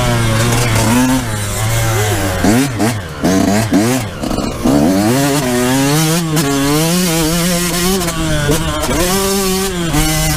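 Yamaha YZ125 single-cylinder two-stroke motocross engine being ridden hard, its pitch climbing and falling repeatedly as the throttle is worked. About two to five seconds in come several quick, short revs and drops in a row.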